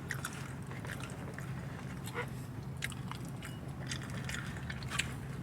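A person chewing barbecue chicken close to the microphone, with scattered small mouth clicks over a steady low hum.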